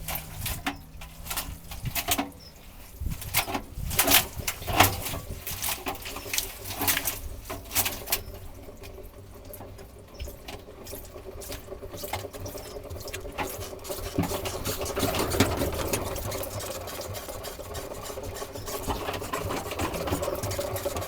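Toy washing machine: a run of sharp clicks and knocks for the first several seconds, then its small motor starts up and hums steadily while water sloshes in the tumbling drum during a softener rinse.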